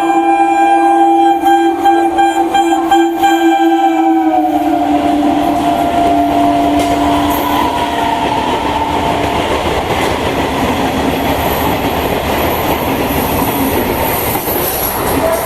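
An Indian electric multiple-unit (EMU/MEMU) train sounding its horn in a long continuous blast as it comes through at speed; about four seconds in the horn's pitch drops as the train passes, and the horn then gives way to the loud rush of the coaches going by.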